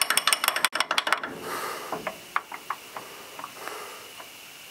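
Hand tools working at the lower ball joint of a truck's front suspension: a run of rapid metallic clicks for about the first second, then scattered light metal taps and clinks as a socket is fitted to the ball joint nut.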